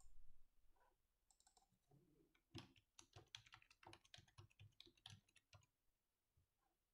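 Faint computer keyboard typing: a quick run of keystrokes lasting about three seconds, starting a little over two seconds in, preceded by a short click at the start.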